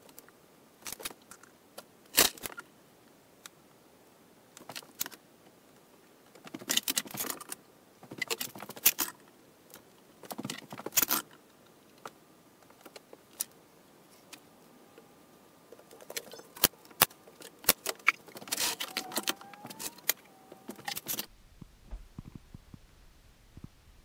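Metal bar clamps clinking and clattering as they are handled and set down onto a wooden box, with wood knocking on the workbench. Irregular clicks and knocks come in bunches, then cut off abruptly near the end.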